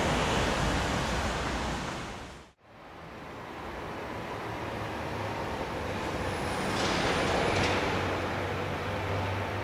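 Steady rushing outdoor noise with a low rumble. It drops out abruptly about two and a half seconds in, then fades back up.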